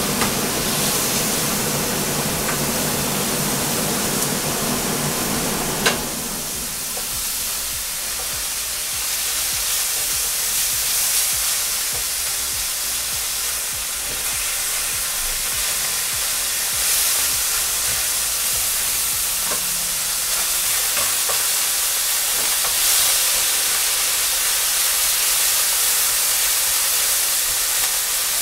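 Beef mince sizzling as it fries in a pan, a steady hiss with occasional stirring. A low hum underneath stops about six seconds in, just after a sharp click.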